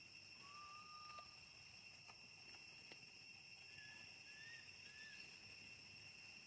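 Faint, steady insect drone of crickets in several high, even tones. About half a second in comes one thin whistled call of nearly a second, and around four to five seconds in three short, higher chirps.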